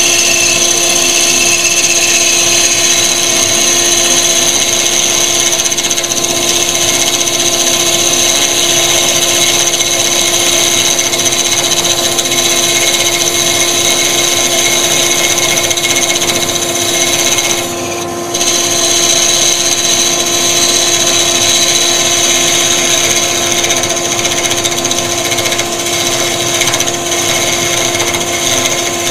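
Wood lathe spinning a log section while a parting tool cuts a straight groove into its base, a steady scraping hiss over the constant whine of a running dust extractor. The sound dips briefly about two-thirds of the way through.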